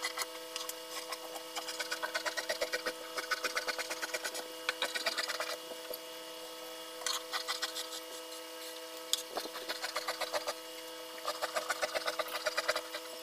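Tailor's steel shears cutting through trouser cloth: quick runs of snipping clicks, with short pauses between runs.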